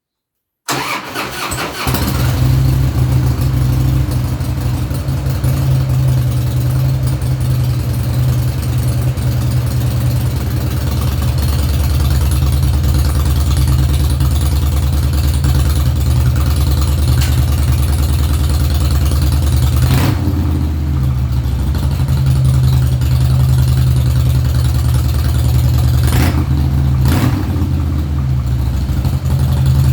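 Harley-Davidson Fat Boy V-twin engine starting and then idling steadily through an MCJ flap-valve exhaust, a deep, even beat. A few short sharp sounds show over the idle, once about twenty seconds in and twice more a few seconds later.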